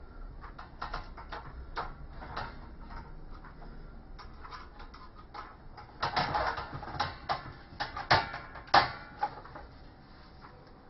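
Hand screwdriver driving 13 mm self-tapping screws through a number plate into its bracket: a run of small clicks and creaks. It gets louder about six seconds in, with two sharp clicks a couple of seconds later.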